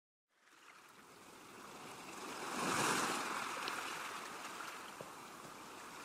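Rush of sea water like a wave washing in: it fades in from silence, swells to its loudest about three seconds in, then ebbs away.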